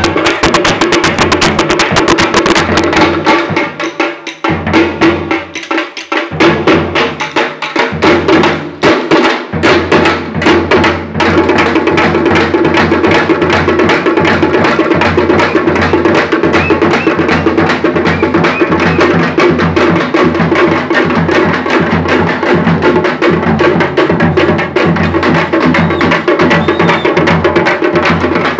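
Parai (thappu) frame drums beaten with sticks in a fast, dense rhythm. About 4 seconds in the playing breaks into a sparser pattern of separate strokes, then resumes steady fast drumming from about 11 seconds in.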